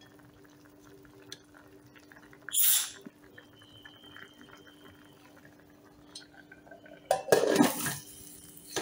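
Pressure cooker lid clattering and scraping against the metal pot as it is set on and closed, loudest for about a second near the end. Before that, a quiet stretch with a faint steady hum and one short hiss about two and a half seconds in.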